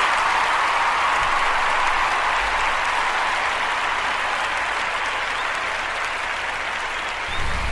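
Applause, a steady wash of many hands clapping that slowly fades. A low rumble comes in just before the end.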